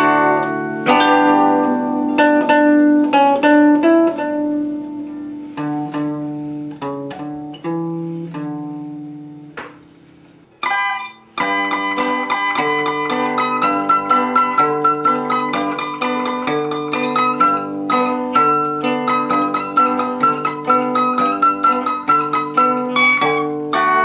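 Concert zither played, its plucked melody and accompaniment strings ringing together. Ringing notes die away to almost nothing about ten seconds in; after a short break a steadier, rhythmic tune starts up with a clear melody on top.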